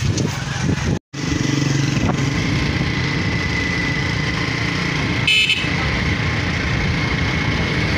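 Motorcycle engine running while riding on the road, with steady road and wind noise. The sound drops out for a split second about a second in, and a short high beep sounds about five seconds in.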